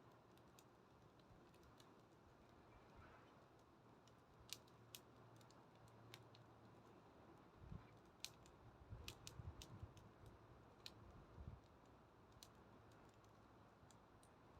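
Faint crackling of a wood bonfire: sparse sharp pops and snaps a second or two apart, with a cluster of soft low thuds in the second half.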